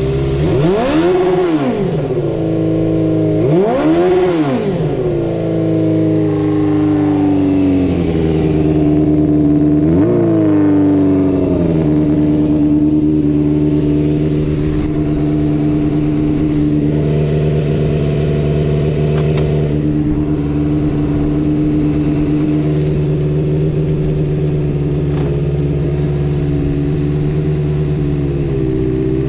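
Suzuki Bandit 250V's inline-four engine with a Pretty Racing short exhaust, blipped twice in the first few seconds and once more, lighter, about ten seconds in, then idling steadily. It revs up cleanly with no abnormal noise.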